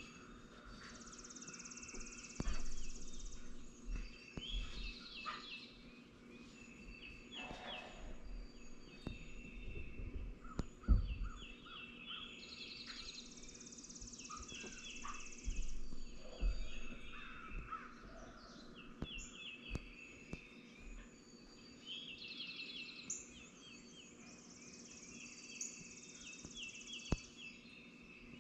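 Several songbirds singing at dawn, overlapping in short repeated phrases, with a high buzzy trill that comes back about every ten seconds. Under them runs a faint steady low hum, with a few soft low bumps.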